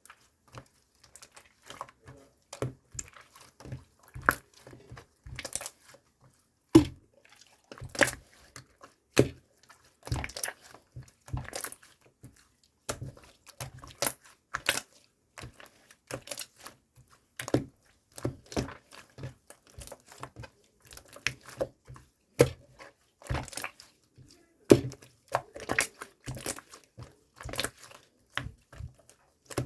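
Crinkly, crackling handling sounds: an irregular run of short, crisp crackles and pops, several a second.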